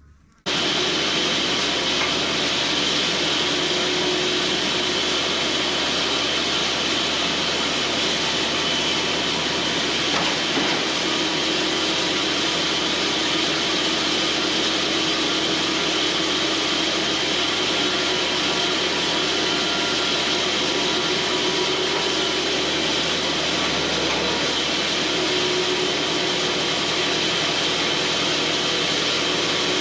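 Cooks band sawmill running and cutting into a log, a steady unbroken machine-and-blade noise that starts abruptly about half a second in.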